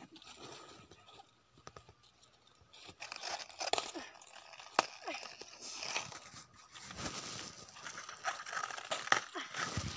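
Cabbages being picked by hand: crisp crunching and tearing of cabbage leaves as heads are broken off, with rustling handling and a few sharp snaps.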